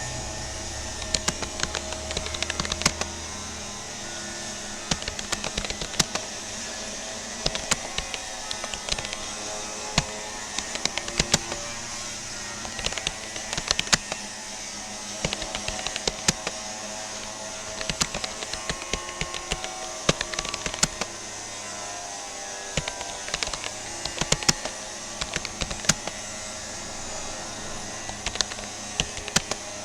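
Typing on a Rapoo computer keyboard: quick runs of key clicks broken by short pauses, over a steady background hiss.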